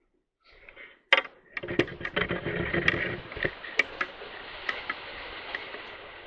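Fishing reel being wound in: a sharp click about a second in, then a fast, continuous run of fine ticks that slowly fades.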